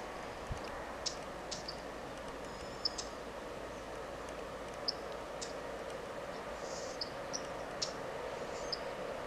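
Small birds giving scattered short, high chirps and brief twittering notes over a steady background hum that grows slightly louder near the end.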